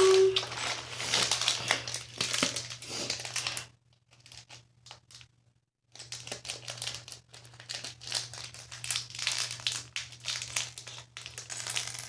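Plastic crinkling and quick small clicks of Lego pieces being handled. There is a break of near silence about four seconds in that lasts about two seconds.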